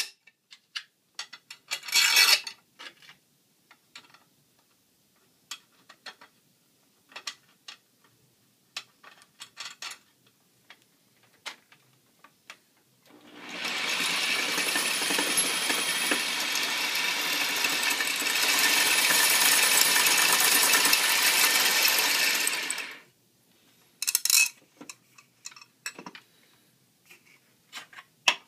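Metal clicks and clinks of washers, nuts and a threaded rod being handled, then a power drill running steadily for about ten seconds, spinning a copper-wire spool on its threaded-rod axle, stopping suddenly, followed by more clicks.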